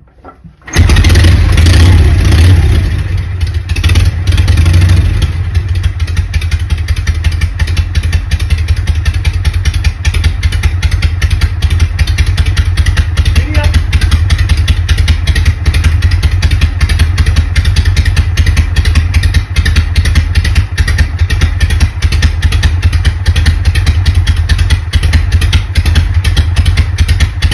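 1977 Harley-Davidson Shovelhead V-twin catching and firing up from cold after a week standing. It runs loud and fast for the first few seconds, then settles to a steady idle.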